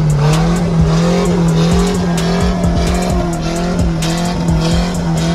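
Ford Ranger pickup's engine held at steady high revs while it spins donuts on dirt, its rear tyres spinning and skidding.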